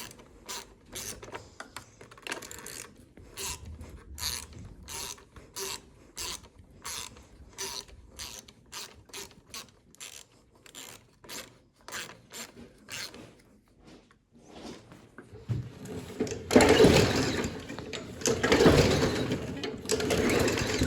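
Socket ratchet clicking steadily as a bolt on a lawnmower is tightened, about two to three clicks a second. In the last five seconds a much louder rushing, scraping noise comes in two surges.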